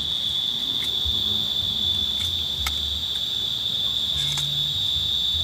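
Steady, high-pitched insect chorus, one unbroken shrill tone, with a faint low rumble beneath it.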